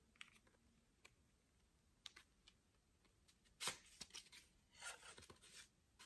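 Faint handling sounds of stiff cards being slid into the pockets of a Louis Vuitton coated-canvas card holder: scattered soft clicks and rustles, with one sharper click a little past halfway.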